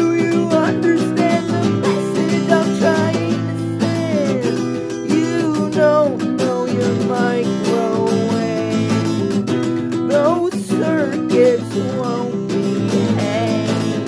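Acoustic guitar strummed in a steady rhythm, with a wordless voice gliding over the chords.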